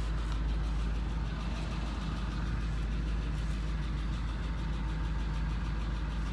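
Ford Expedition's engine running steadily at low speed, a constant low hum heard from inside the cabin.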